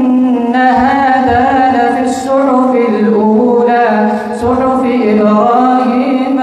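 An imam's solo Quran recitation in prayer: one man's voice chanting long, drawn-out melodic phrases, held and ornamented. It breaks off briefly twice, about two seconds in and again past the middle.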